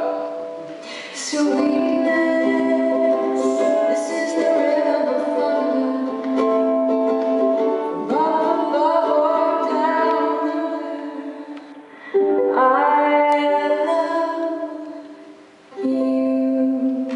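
A woman's voice singing a slow song in long held phrases, with a ukulele strummed underneath.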